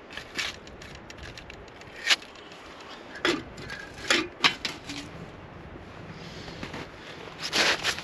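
Handling noises from rigging an ice-fishing trap: irregular clicks, crackles and short scrapes, with a few sharper scrapes through the middle and a cluster of them near the end.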